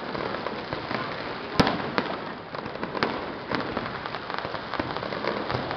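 Aerial fireworks bursting: a sharp bang about a second and a half in and a few softer bangs later, over continuous crackling.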